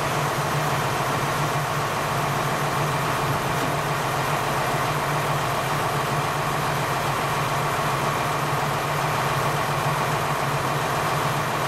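KiHa 47 diesel railcar's engine idling steadily, a low, even exhaust drone.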